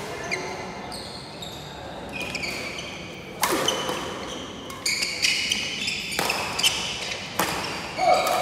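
A badminton rally with sneakers squeaking repeatedly on the wooden court floor. From about three and a half seconds in there is a quick exchange of sharp racket hits on the shuttlecock, about one every second and a half, echoing in the hall.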